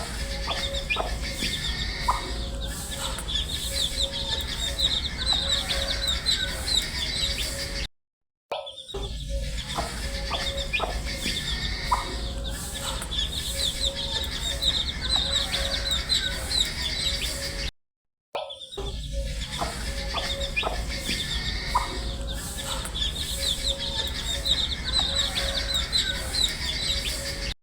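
A brood of baby chicks peeping continuously: many rapid, high-pitched cheeps overlapping, over a faint steady hum. The sound cuts out for a moment about 8 seconds in and again about 18 seconds in, then picks up the same stretch of chirping again as the recording loops.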